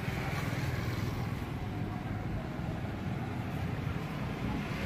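Steady low rumble of street background noise, like passing traffic, with no distinct events.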